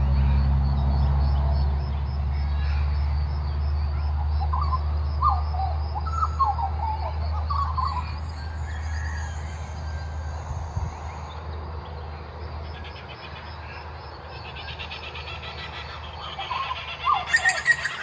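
Butcherbirds calling: short fluty notes that slide up and down, in a cluster of phrases, over a low steady rumble that fades away. Near the end a louder burst of busier, higher calls starts.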